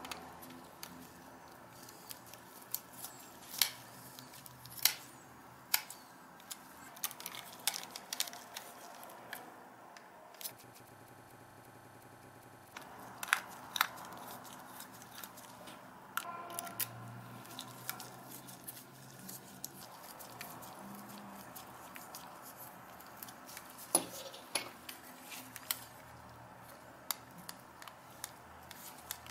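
Scattered sharp clicks, taps and light scrapes of a precision screwdriver and a thin pry tool working the screws and plastic seams of a Canon PowerShot A490 compact digital camera being taken apart. The camera's small parts knock together as the casing is handled, with a quieter pause of a couple of seconds near the middle.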